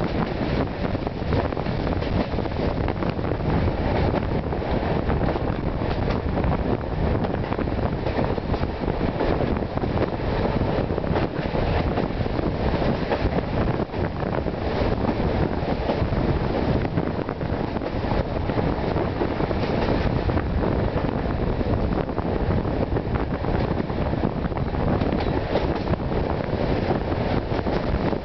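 Steady wind buffeting the microphone over the running rumble of a moving passenger train, heard from a window of one of its carriages.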